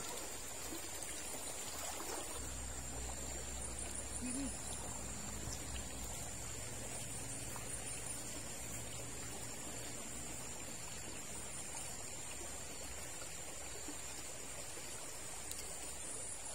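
Shallow river water running and trickling over rocks, with a steady high-pitched whine above it and a low rumble that sets in about two seconds in.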